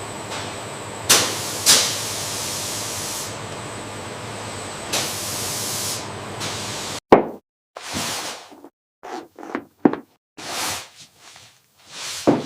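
A steady hiss with two sharp knocks early on, then, after an abrupt cut, a run of short separate knocks and thuds with silent gaps between them.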